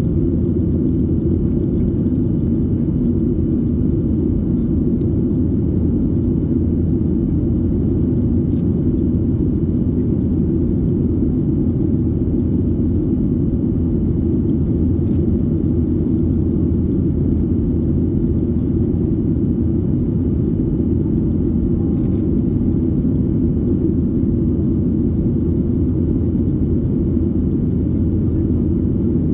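Boeing 737-800 cabin noise: a steady, loud rumble of the CFM56-7B turbofan engines and airflow, with a few faint clicks.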